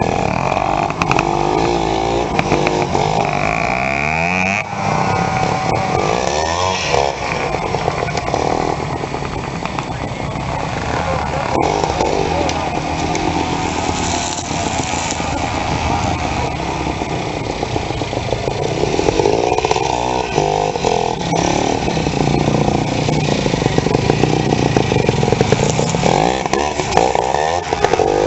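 Vintage trials motorcycle engine picking through an obstacle section, revving up and down in repeated blips of throttle with steadier low running in between.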